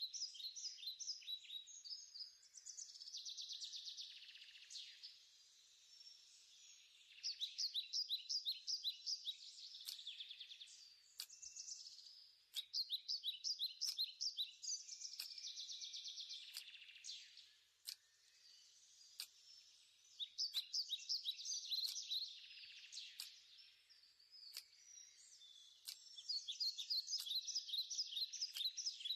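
Animal chirping: rapid, high-pitched trills repeated in phrases of one to two seconds with short gaps, and scattered faint clicks between them.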